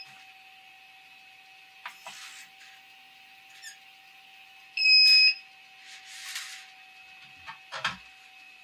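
Prusa 3D printer's buzzer giving one loud half-second beep about five seconds in: the filament-change (M600) alert calling for the next filament colour. A faint steady tone runs underneath, and soft rustling and a few clicks come from the filament spool being handled.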